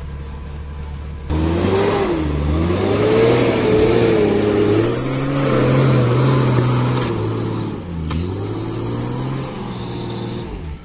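Jeep Cherokee XJ's engine revving as it climbs a muddy trail, its pitch rising and falling. A steady low engine hum jumps suddenly to the louder revving about a second in, and the revs ease off near the end.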